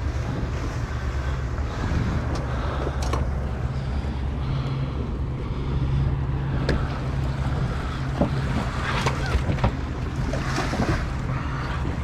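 Wind buffeting the microphone over water lapping against a small boat, a steady low rumble, with a few short knocks.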